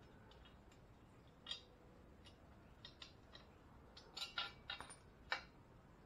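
Scattered faint clicks and knocks of a lawn mower blade and its mounting hardware being handled and worked loose from under the tipped-over deck, with a quick cluster of clicks from about four seconds in and the loudest one near the end.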